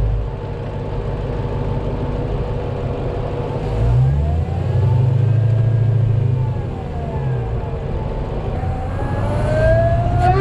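Dodge Challenger Hellcat's supercharged 6.2-litre Hemi V8, breathing through a Bwoody cold-air intake, accelerating. The revs climb about four seconds in, hold, fall back, then climb again near the end, with a supercharger whine rising and falling with them.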